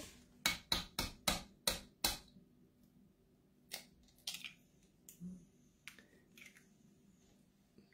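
An egg tapped several times in quick succession against the rim of a mixing bowl to crack its shell, then a few softer cracks and clicks as the shell is pulled open over the bowl.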